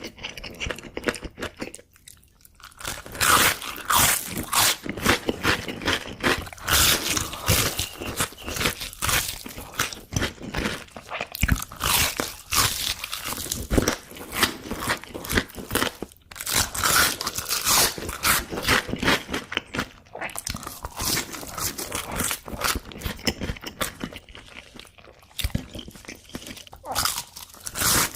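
A person biting into and chewing crunchy fast food close to an ASMR microphone: a dense, steady run of crisp crunches and chewing, with a brief pause about two seconds in.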